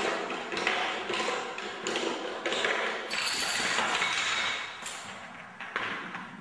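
Domino-style chain reaction of small pieces toppling one after another on a hardwood floor: a dense, continuous clatter of light clicks and taps that thins out near the end.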